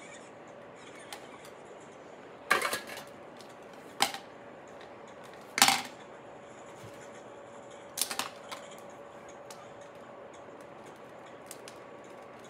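Four sharp clacks and knocks about one and a half to two and a half seconds apart, as craft tools are set down: scissors on a plastic cutting mat and a corded red-handled tool into a metal can. A faint steady hum runs underneath.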